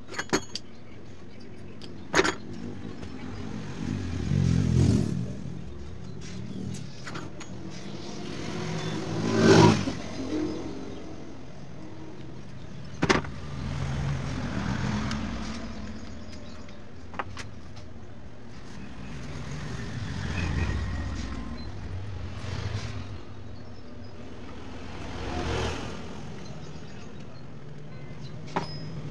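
Road vehicles passing now and then, each rising and fading over a second or two, over a steady background hum. A few sharp clicks and some rustling come from wires and tools being handled on the workbench.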